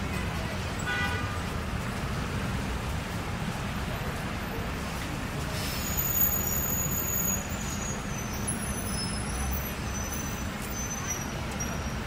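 Busy New York City street ambience: a steady rumble of traffic under a crowd of pedestrians and their voices. A brief horn toot sounds about a second in.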